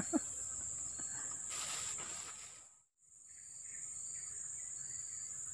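Steady high-pitched chorus of insects, which drops out briefly about three seconds in and comes back with faint short chirps repeating about once a second.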